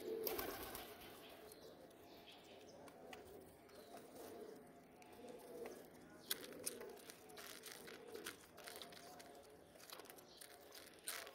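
Domestic pigeons cooing softly, a low coo every second or so, with scattered sharp clicks of beaks pecking grain pellets in a plastic bowl.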